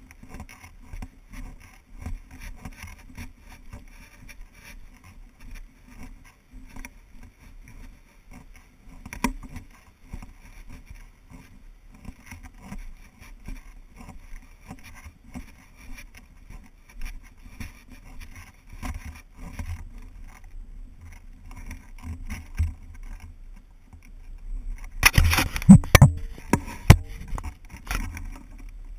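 Walking noise from a handheld camera pole: footsteps on a dirt trail with steady rubbing and scraping of the pole mount. Near the end comes a louder burst of knocks and rubbing.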